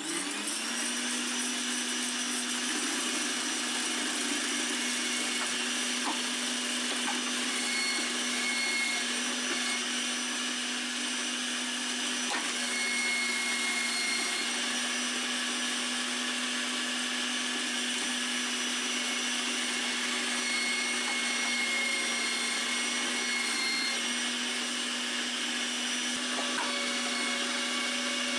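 Electric vegetable shredder switched on and running steadily with a constant motor hum while zucchini is fed through its grating drum and shredded.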